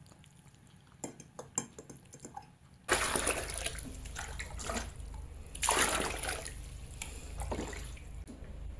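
A few light clicks of handling, then water suddenly starts pouring or running into a vessel about three seconds in, swelling in a few surges before settling into a steadier flow.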